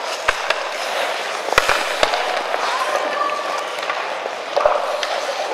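Ice hockey play: hockey sticks and puck clacking sharply, about five knocks with three of them close together around two seconds in, over the steady scrape of skates on the ice.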